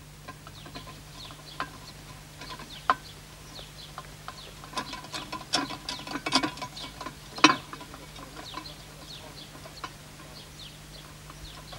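A small tin can clattering and knocking as it tumbles over stony ground, in a burst of sharp knocks in the middle, over a background of short, high bird chirps repeating throughout.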